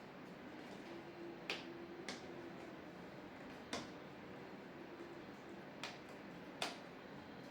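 Five sharp, isolated clicks of hands working on a TV's LED backlight strips, fitting and securing them, over a faint steady hum.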